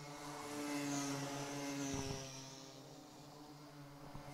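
Small two-stroke engines of Micro-class racing karts running at speed on the track, a steady buzz that swells about a second or two in as karts pass and then fades.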